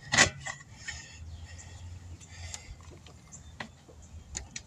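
Steel tire iron clinking against a steel wheel rim as a tire bead is levered on by hand: one sharp clank at the start, then scattered lighter clicks over a faint low hum.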